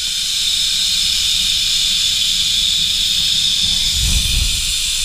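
Zipline trolley's pulley wheels running along the steel cable: a steady high hiss, with wind rumbling on the microphone and swelling briefly about four seconds in.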